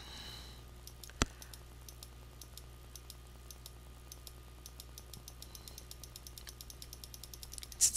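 Faint typing on a computer keyboard, a quick run of light key clicks, with one louder sharp click about a second in. A low steady hum sits underneath.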